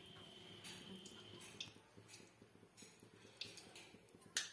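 Near silence: faint room tone with a few scattered soft ticks, and a sharper click just before the end.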